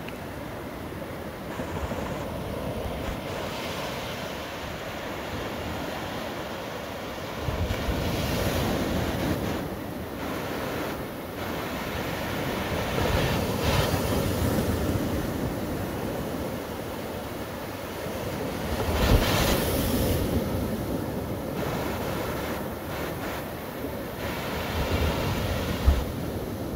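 Sea surf: small waves breaking and washing up a sandy beach as a continuous rush of foaming water. It swells as each wave breaks, about every five or six seconds, and is loudest in the last third.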